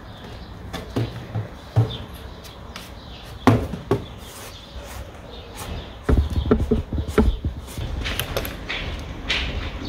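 Wooden chair parts and tools being handled during gluing and clamping: scattered knocks and clicks, with a quick run of knocks about six to seven and a half seconds in.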